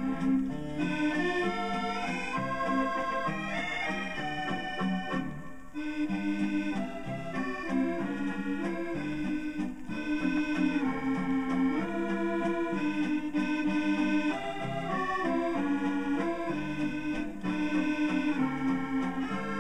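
Accordion music played from an old 78 rpm record on a portable record player, a continuous melody of held, reedy chords.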